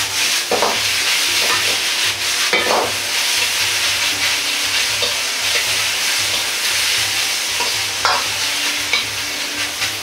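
Pork, bamboo shoots and deep-fried tofu sizzling steadily in a hot wok as they are stir-fried, with the metal ladle scraping and clinking against the wok a few times.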